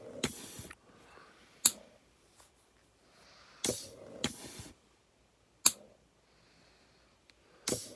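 A prototype ventilator cycling breaths, one about every four seconds. Each cycle brings a rush of about a second, then a single sharp click.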